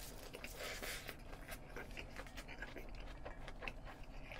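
Close-miked chewing of a full mouthful of spicy cold noodles wrapped in pickled leaves, with many small wet mouth clicks and soft breathing.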